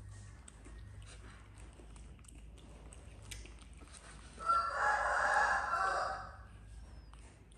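A rooster crowing once, a loud call of under two seconds starting a little past the middle. Faint clicks and taps come through before it.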